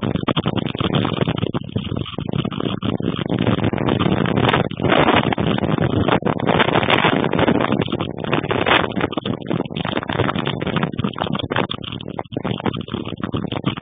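Strong storm wind gusting across the microphone: a loud, rushing noise that rises and falls with the gusts.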